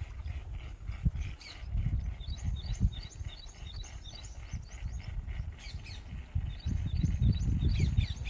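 Small birds chirping in quick runs of short, high notes, with a low rumbling noise underneath.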